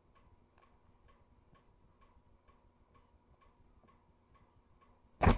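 Faint, regular ticking, between two and three ticks a second, like a clock ticking in a quiet room, then two short louder noises near the end.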